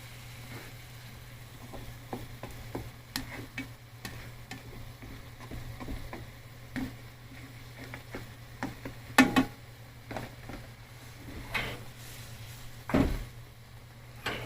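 Cooking at a pan: light sizzling and stirring, with utensil clicks and several sharper knocks against cookware, the loudest about nine seconds in, over a steady low hum.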